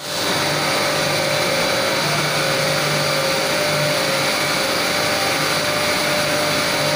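Kabra blown film extrusion line running: a steady machine whir and hiss with a faint constant whine.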